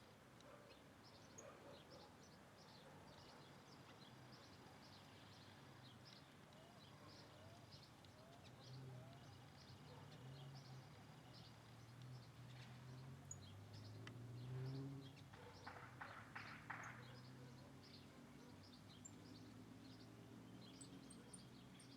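Faint birdsong: many short, high chirps and twitters from small birds. A low hum runs under the middle part.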